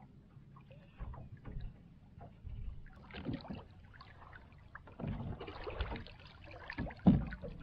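Faint, irregular water and knocking sounds from a small fishing boat, in short uneven spells.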